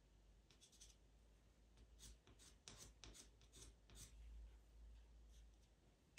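Faint, short scratching strokes of a pastel pencil on Pastelmat paper, coming irregularly a few at a time as fur is drawn, over a low steady hum.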